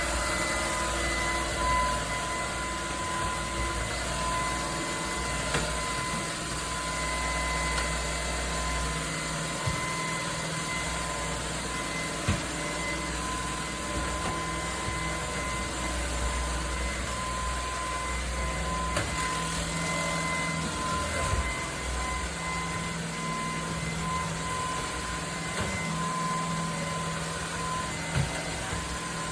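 Cordless stick vacuum running, its motor whine holding a steady pitch over a low hum, with a few brief knocks.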